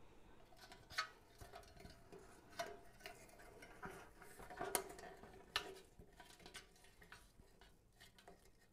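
Faint rustling and scattered light clicks of artificial pine and berry sprays and a plaid ribbon bow being handled and bent into shape by hand.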